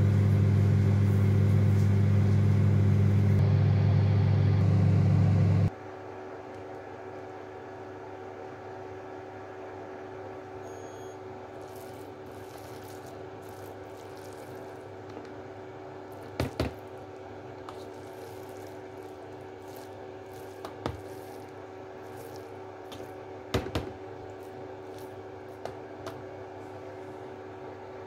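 Microwave oven running with a loud steady hum that cuts off abruptly about six seconds in. After that a fainter steady hum carries on, with a few short clicks and scrapes of a metal slotted spoon against a plastic bowl as cooked rice is stirred.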